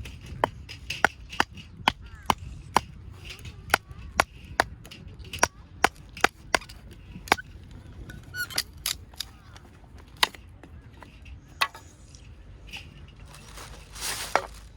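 Axe striking wood with sharp, quick chops, about two or three a second for the first seven seconds or so, then a few scattered strikes and a brief rustling burst near the end.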